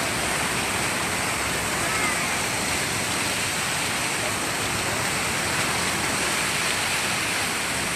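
Steady rushing and splashing of the Fountain of Wealth's water jet, close by, with a hand held in the falling water.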